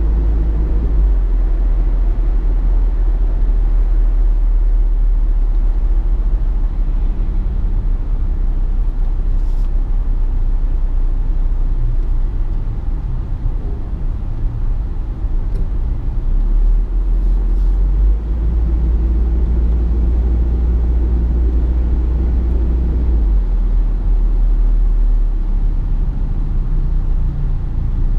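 Steady low rumble of a motor vehicle on the move, with most of the sound deep in the bass.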